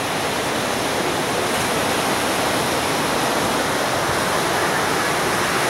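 Ocean surf breaking on the beach, a steady wash of noise from waves raised by a distant hurricane's swell.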